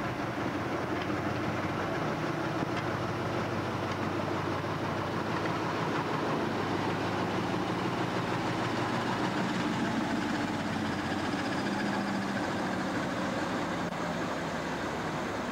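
Slow-moving train of vintage passenger coaches rolling past, wheels rumbling on the rails, with the steady drone of a small diesel shunting locomotive's engine as it hauls them.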